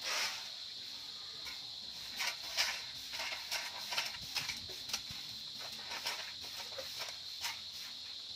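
Stiff stick broom (walis tingting) sweeping a gravelly dirt yard: short scraping strokes, about two a second, begin about two seconds in.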